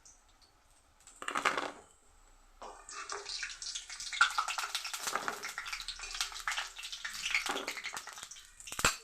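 Lentil fritters being lifted out of hot oil in a kadai: the oil sizzles and crackles, with scrapes and clinks of a metal spoon against the pan. A short burst about a second in, then steady crackling, ending in a sharp knock.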